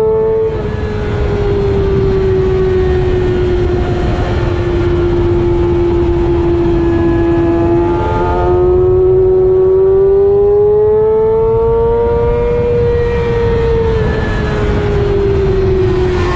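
Sport motorcycle engine at high revs on a track lap, with heavy wind rush over the microphone. The engine note sags slightly as the bike slows for a corner, climbs again on the throttle from about halfway through, and eases off near the end.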